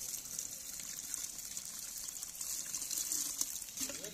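Water splashing and trickling with a fine, steady crackling patter, from a plastic basket of live tilapia fry being handled in and over a pot of water.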